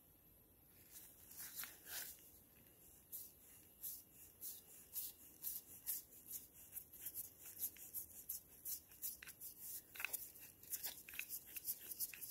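Keyless drill chuck turned by hand on its tool holder: a faint, uneven run of quick clicks and ticks from the chuck sleeve and jaw mechanism, thickening after about five seconds.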